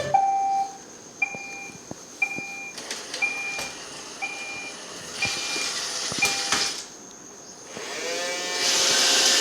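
Electronic beeping, seven short two-tone beeps about once a second, typical of a Roomba robot vacuum signalling. Near the end comes a rising whine with a hiss, like a motor spinning up.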